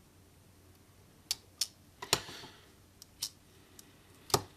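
Small sharp clicks and taps of a hand tool working on an opened smartphone's internals as the battery connector is disconnected: about five separate clicks, one followed by a short scrape, the loudest near the end.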